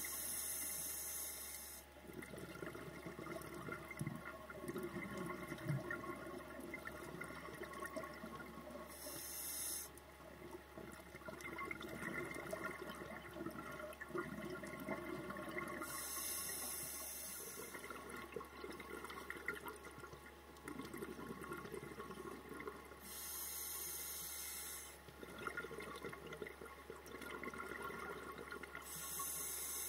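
A scuba diver breathing through a regulator underwater: a short hiss of breath about every seven seconds, with bubbling, gurgling exhalations in between.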